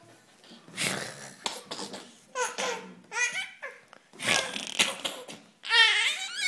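Baby laughing in repeated short bursts, some breathy and some high-pitched and wavering, the loudest burst near the end.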